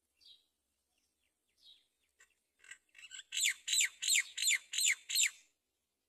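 Great myna nestlings calling in the nest. A few faint chirps come first, then about halfway through a run of seven loud calls in quick succession, about three a second, each falling in pitch: begging calls for food.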